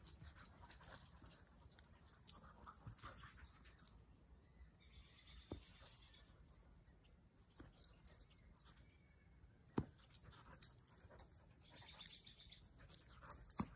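A dog at play gives short, high whines three times, among faint scattered rustles and a few sharp thumps.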